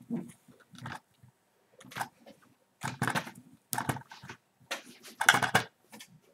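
Fiberfill stuffing rustling as it is pushed by hand into the Wuggle Pets stuffing machine's clear plastic cup, with fingers brushing and knocking the plastic in irregular bursts.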